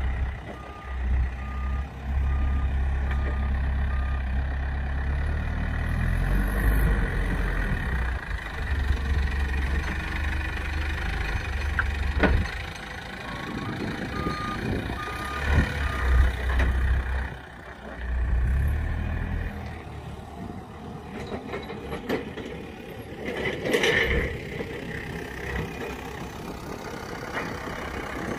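Heavy vehicle engine running and working up and down, with a backup alarm beeping about twice a second in two short spells, as it maneuvers while loading apple bins onto a truck. A sharp knock sounds about twelve seconds in.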